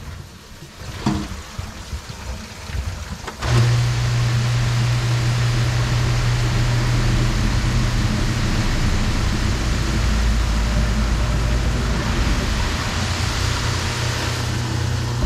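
Newly installed garbage disposal switched on about three and a half seconds in, after a few knocks, and running with a steady motor hum while water rushes through it and down the drain: a test run of the fresh install to check that the drain connections hold.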